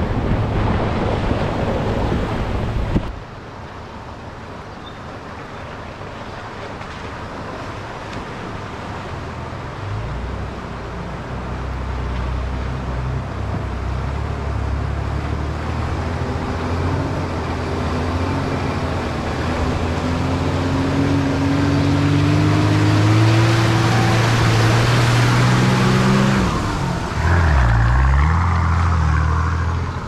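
Four-wheel drive's engine running under load on a dirt track, its pitch rising and falling with the throttle, with a brief dip and pick-up again near the end. For the first three seconds a loud wind-like rush covers everything, then cuts off suddenly.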